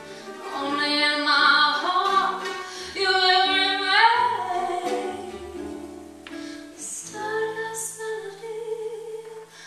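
Female vocalist singing a slow jazz ballad with vibrato and a rising glide, over a small acoustic band with plucked upright bass. The voice is loudest in the first half of the phrase.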